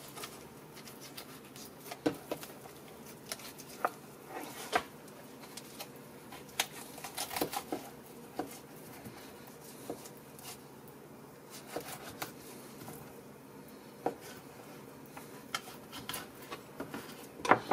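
Knife working along a raw duck carcass on a plastic cutting board, cutting the meat off the bones: scattered light clicks and taps at irregular intervals.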